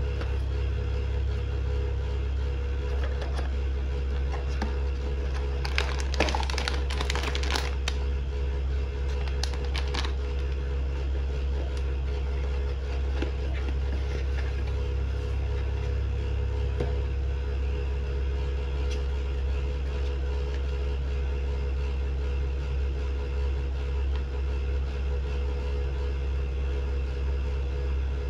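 A cardboard blind box being opened and handled, with a burst of cardboard and paper rustling about six to eight seconds in and a shorter one around ten seconds, then lighter scrapes. Under it runs a steady low rumble.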